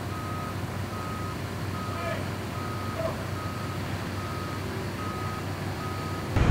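Heavy-equipment backup alarm beeping steadily, one short single-pitch beep about every 0.8 seconds, over a steady low engine hum. The sound stops abruptly near the end.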